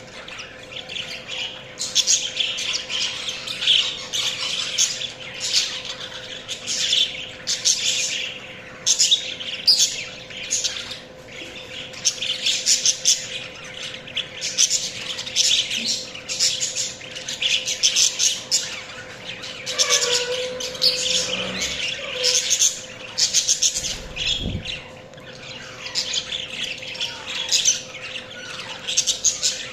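Budgerigars chirping and chattering in rapid, near-continuous bursts of high chirps and squawks with short pauses. A steady hum runs underneath, and there is one dull low thump about three-quarters of the way through.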